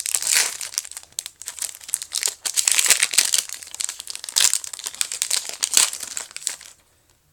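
Foil wrapper of a Pokémon booster pack crinkling as it is torn open and handled, a dense, irregular crackle that stops near the end.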